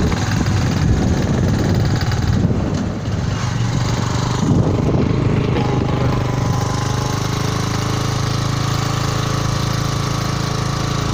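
Motorcycle engine running while riding, with wind rumbling on the microphone. The rumble is heaviest in the first half, and a steady engine tone comes through more clearly in the second half.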